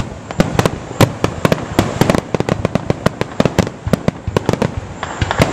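Aerial fireworks display: a rapid barrage of shell bursts and bangs, several a second, thinning slightly near the end.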